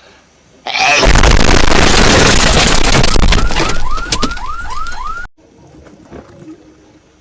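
A sudden, extremely loud, distorted meme sound effect, clipped to full scale, starting less than a second in and running about four and a half seconds. A run of five rising chirps, about two a second, comes near its end, and then it cuts off abruptly.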